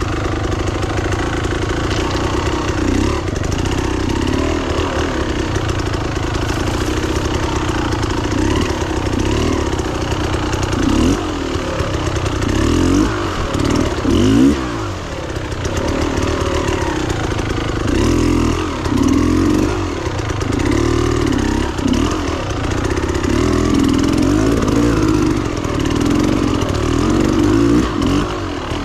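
Beta Xtrainer 300 two-stroke dirt bike engine under way off-road, its note rising and falling over and over as the throttle is worked, with quick blips of revs in the second half.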